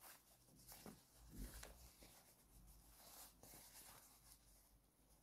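Near silence with faint rustling and light handling noises from a fabric winter cap's ear flap and strap being fastened under the chin.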